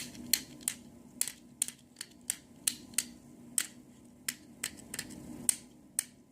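Plastic gears on the side of a fidget cube being rolled with a thumb, giving a run of sharp little clicks, about two to three a second and unevenly spaced.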